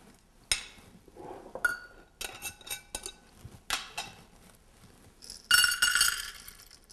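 Light clinks of a spatula and a metal measuring cup against a ceramic mixing bowl. About five and a half seconds in, baking chips poured from a glass jar rattle into the metal measuring cup with a brief ringing clatter, the loudest sound here.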